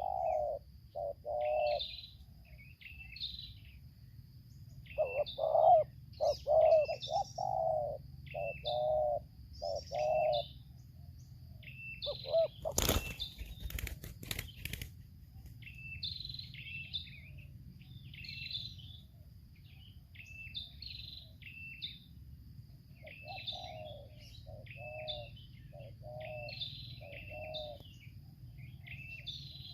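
Spotted doves cooing in repeated groups of short notes, with small birds chirping steadily throughout. About thirteen seconds in comes a loud burst of wing flapping lasting a second or two.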